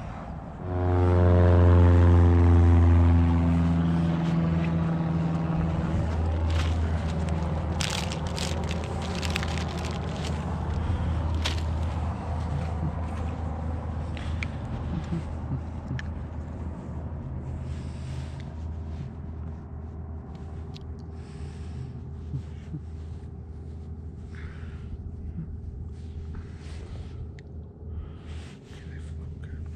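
A low engine drone comes in suddenly about a second in, is loudest over the next few seconds, then slowly fades, with scattered clicks and rustles over it.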